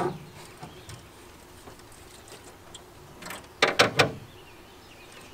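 A quick cluster of several knocks and clatter on an aluminum jon boat about three and a half seconds in, as a person moves across the boat's seats and handles a landing net.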